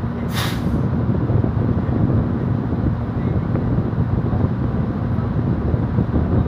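Steady low rumble of a passenger ferry's engines under way, with wind buffeting the microphone on the open deck. A short hiss about half a second in.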